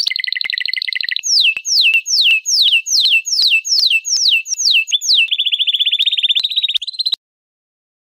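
Domestic canary singing. It opens with a fast trill, then gives a run of clear whistled notes that each sweep downward, about three a second, and ends on another fast trill that rises at the end and cuts off abruptly about seven seconds in.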